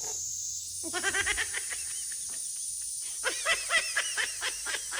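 Cicadas (semi) singing in a steady high-pitched summer drone. Over it come short bursts of quick, pitched vocal chirps about a second in and again for the last two seconds.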